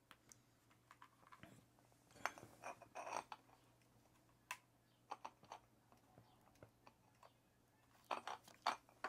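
Faint light clicks and taps of a wrench working on the axle nut of an electric scooter's hub-motor wheel, in a few short clusters a couple of seconds apart.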